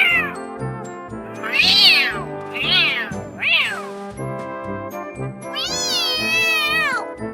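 Cat meows over background music with a steady beat: three or four short meows rising and falling in pitch, then one long drawn-out meow near the end.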